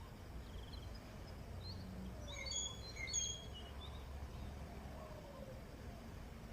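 A few high, quick chirps from small birds come in a short flurry in the middle, over a faint low steady rumble of outdoor background noise.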